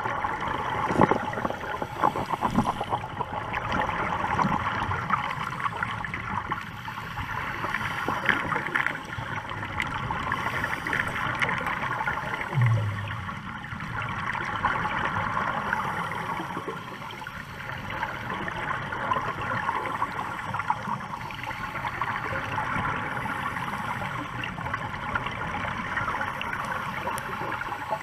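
Underwater sound through a dive camera's housing: a steady crackling hiss with the gurgle of divers' exhaled air bubbles, swelling and fading every few seconds.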